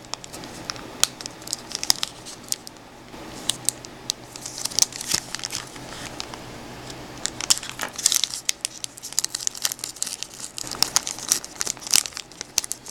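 Wrapper of a 2018 Absolute Football trading card pack being torn open and crinkled by hand. Irregular sharp crackling comes in clusters, heaviest about four seconds in, around eight seconds, and through the last few seconds.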